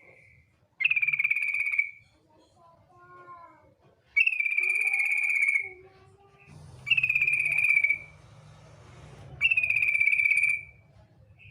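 Female yellow-vented bulbul (trucuk) giving four loud, rattling churr calls of about a second each. Softer, lower chattering notes come between them.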